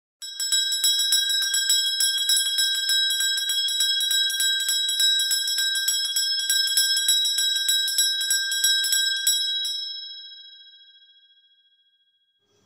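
A bell struck rapidly and continuously, about six strikes a second, for nearly ten seconds, then left to ring out and fade away.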